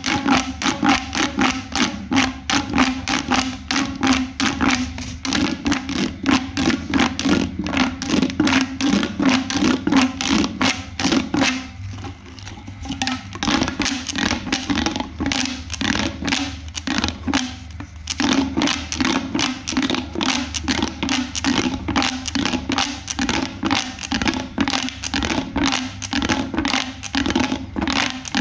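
Rapid run of crisp clicks and pops, several a second, from a homemade pop-sound toy being worked by hand, over a low steady hum. The clicking thins out briefly twice.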